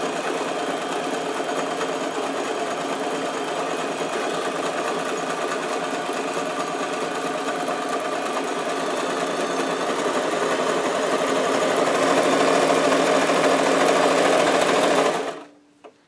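Brother JS-23 household sewing machine stitching a large zigzag through fabric, running steadily without knocking, its shuttle hook freshly cleared of binding. It gets louder about ten seconds in, then stops about a second before the end.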